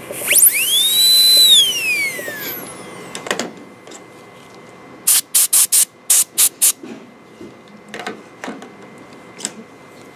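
High-speed air-turbine dental handpiece (airotor) whining: it spins up to a high steady pitch, runs for about a second, then winds down in a falling glide. A few seconds later come about six short, sharp hissing bursts.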